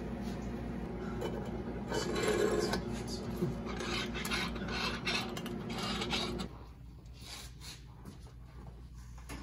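Steel rod sliding and scraping through a square steel tube and its end caps as the parts of a spring fixture are handled on a steel welding table, loudest a couple of seconds in. A steady low hum runs under it and drops away about six and a half seconds in, leaving only light handling clicks.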